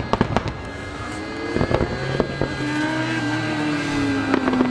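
Aerial firework shells bursting in a fast barrage. A rapid string of bangs comes in the first second and again near the end, with a sustained hum slowly falling in pitch in between.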